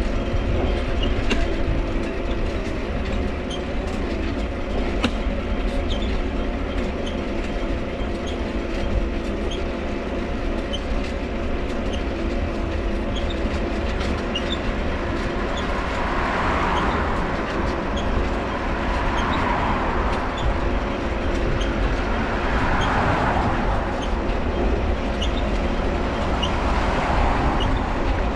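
A Mifa folding bike being ridden: its dynamo runs with a steady hum over the rolling of the tyres, and the cranks squeak with small repeated ticks. A hiss swells and fades several times in the second half.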